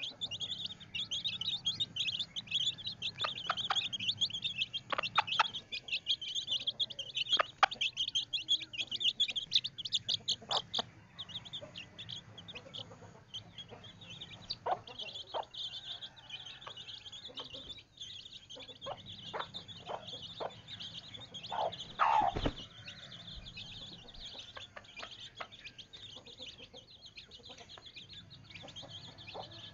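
Chickens clucking among constant rapid, high-pitched chirping, with one louder call falling in pitch about 22 seconds in.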